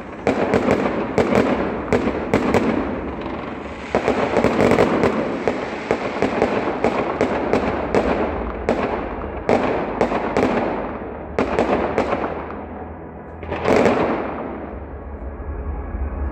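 Fireworks display: shells bursting in a rapid, irregular series with crackling between the bangs. One last loud burst comes near the end, then the sound dies away.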